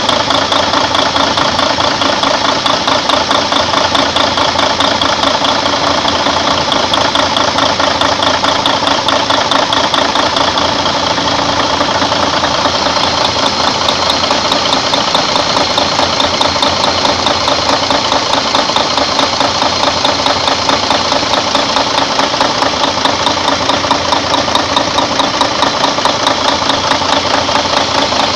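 Freshly overhauled Mercedes-Benz Actros truck diesel engine idling steadily.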